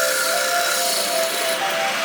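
Background music: a melody of held notes that step from one pitch to the next.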